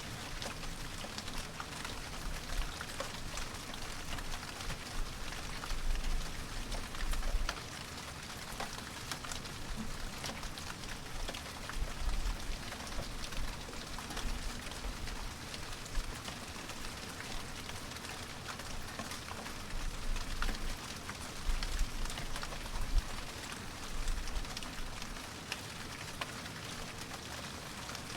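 Steady rain falling, with many individual drops pattering sharply. Now and then a low rumble swells for a second or two.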